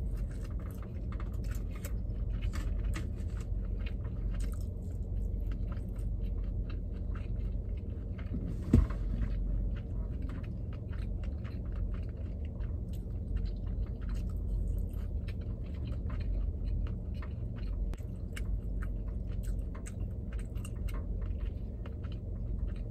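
Close-miked chewing and biting of sushi, with a quick irregular run of small mouth clicks and some crunch. There is one sharp, louder click about nine seconds in.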